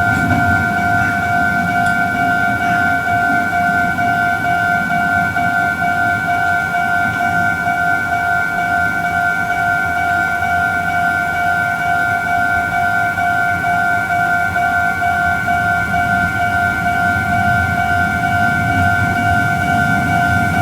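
Japanese railway level-crossing warning alarm sounding continuously at one pitch while the barriers are down for an approaching train, over a low rumble.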